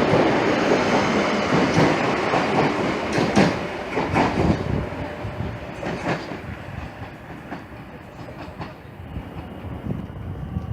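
A train passing along the station tracks, wheels clacking over rail joints with a string of sharp knocks. The running noise fades steadily as the train moves away, and the knocks come less and less often.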